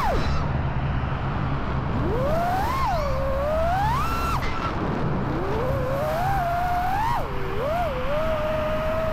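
5-inch FPV quadcopter's brushless motors and propellers whining, the pitch swooping up and down with the throttle. It drops sharply right at the start, climbs and falls several times, then settles into a steady whine near the end, over a low rush of wind.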